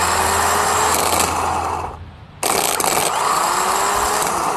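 Automotive starter motor run off the vehicle on battery power via jumper cables, spinning freely with a loud whir as its solenoid throws the pinion gear out. It runs twice, each time for about two and a half seconds, starting abruptly with a tone that rises as it spins up and a short stop in between. The pinion pushing out and turning shows the solenoid and motor both working.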